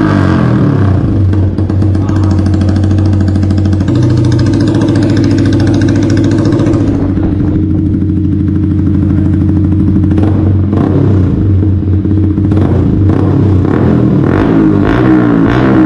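Yamaha R15 V3's single-cylinder engine running through its exhaust at idle, with several short throttle blips in the second half.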